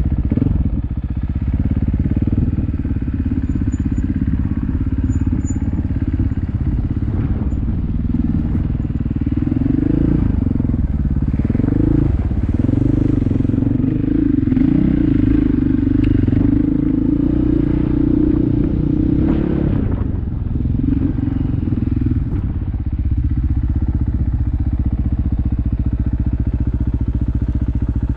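Off-road vehicle engine running under load, its pitch rising and falling repeatedly through the middle as the throttle is worked, then settling to a steadier run for the last few seconds.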